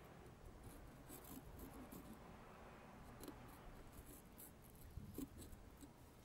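Faint scraping of a small pumpkin carving knife sawing through pumpkin flesh, with a few light clicks and ticks.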